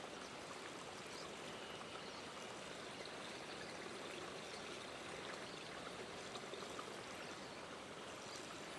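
Running water of a small mountain creek: a steady, even rush.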